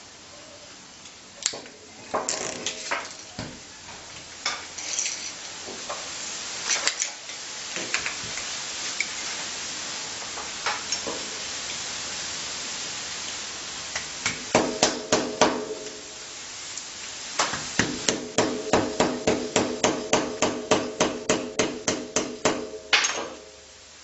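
Hammer blows on a steel punch set against a microwave oven transformer, knocking at its winding to drive the coil out of the iron core; each blow is a sharp metallic strike with a brief ring. Scattered blows come first, then a quick burst of about six, then a steady run of about four blows a second near the end.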